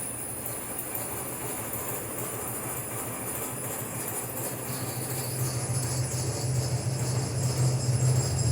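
Suspension test machine shaking a Ford Ranger pickup. Its low hum swells about five seconds in, over a continuous rattling and knocking from the truck's loose suspension, body and exhaust parts.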